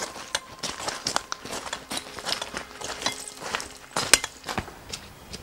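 Footsteps of several people walking over stony ground, a run of irregular crunches and scuffs, with one sharper knock about four seconds in.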